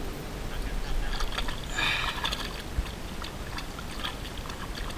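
A wooden oar in an oarlock strokes through lake water beside an aluminum rowboat, with swishing and splashing that is loudest about two seconds in. A single knock sounds just before three seconds in.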